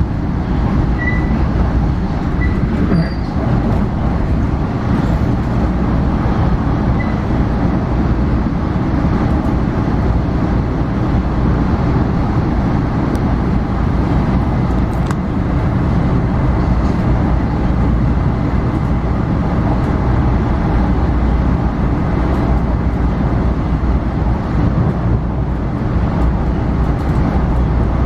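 Commuter train running steadily, heard from inside the passenger car: a continuous, even rumble of the wheels on the rails.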